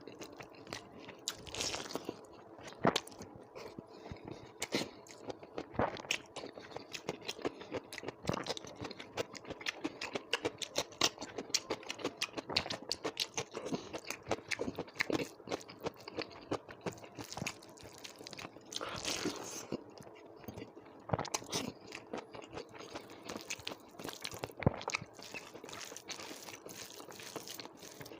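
A person chewing and crunching a rice meal with dal, curries and salad. Many irregular crisp bites and mouth clicks follow one another.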